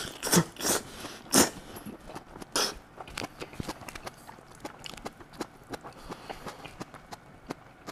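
A person slurping shirataki noodles, four loud short slurps in the first three seconds, then chewing with many small clicks.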